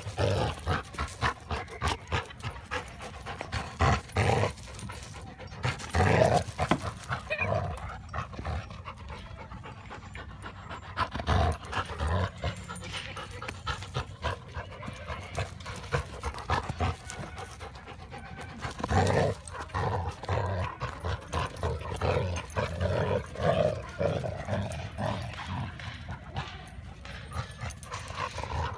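Two Labrador retrievers play-fighting mouth to mouth, growling and panting in irregular bursts. The noise is rough play between friendly dogs, not real aggression.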